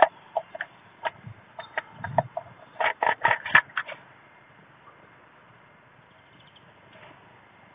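A blue tit's claws and beak tapping and scratching on a wooden nest box as it goes in through the entrance hole: a quick, uneven run of sharp taps that ends about four seconds in.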